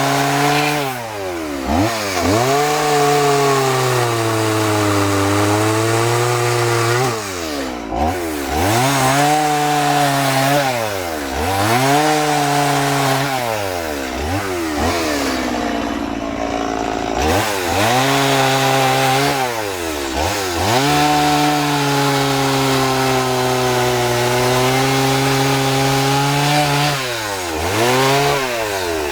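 Two-stroke chainsaw cutting into a wood block at high revs, its engine pitch dropping sharply and climbing back every couple of seconds as the saw is eased off and throttled up again between cuts.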